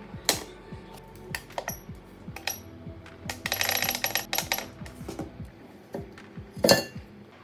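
Background music, with small metallic clicks and taps from hand tools working on a phone. A busy run of rattling clicks comes in the middle, and a sharp knock comes near the end.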